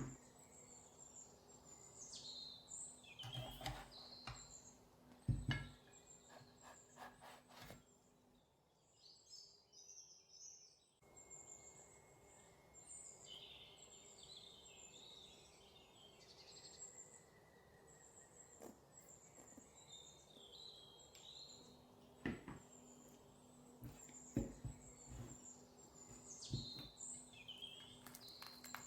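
Faint birds chirping in short, repeated calls, with a few scattered knocks.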